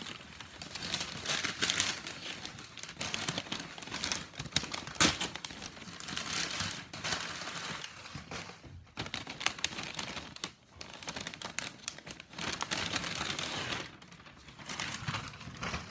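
Shiny gold wrapping paper crinkling and tearing as a present is unwrapped: quick, irregular rustles and crackles, with a couple of brief pauses past the middle.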